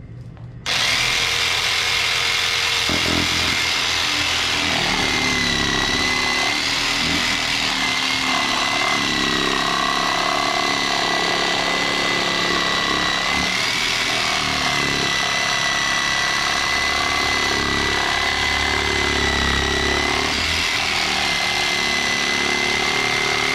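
Jigsaw clamped upside down in a bench vise, switched on about a second in and running steadily with a high whine as it cuts a circle out of an old mud flap.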